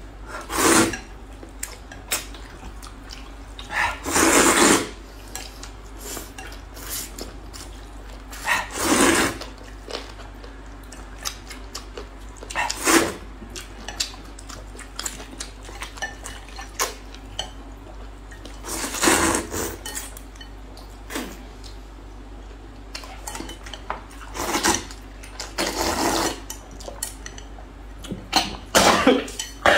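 Noodles in broth being slurped from bowls, a loud slurp every few seconds, each lasting about half a second to a second, with chopsticks and bowls clinking in between.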